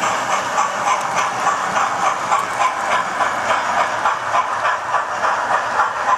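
Model trains running on a layout: a steady whir and rattle of locomotives and coaches on the track, with a fast, even clicking of about four or five ticks a second.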